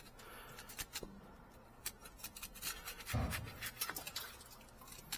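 Light scattered clicks and small scrapes of metal tools and parts being handled, with a short low thump about three seconds in.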